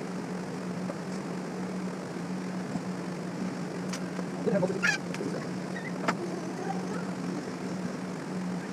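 Steady low background hum, broken by a few sharp clicks and a short clatter of parts being handled about four to five seconds in, and one more click about six seconds in.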